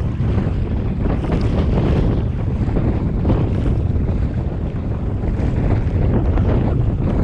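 Wind buffeting the microphone, with water lapping and splashing around a kayak on open water.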